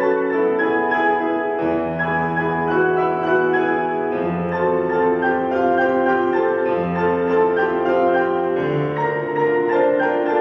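Concert grand piano playing solo: a dense, fast stream of notes in the middle and upper register over held low bass notes that change about every two seconds.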